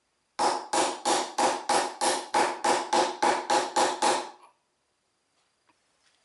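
A hammer striking the top end of a Toyota T50 gearbox countershaft about a dozen times, about three blows a second, each blow leaving the steel shaft and gear ringing. The blows stop suddenly a little past the middle.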